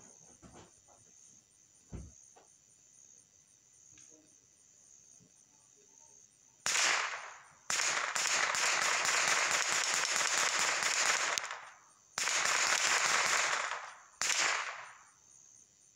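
Rapid automatic gunfire in four bursts starting about seven seconds in, the longest lasting about four seconds, shots packed too fast to count. Insects trill steadily in the background, and a single knock sounds about two seconds in.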